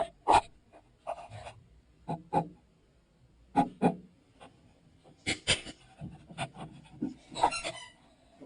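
Yorkshire terrier puppy playing: a run of irregular scratches, taps and rubbing sounds, with a brief pitched sound about seven and a half seconds in.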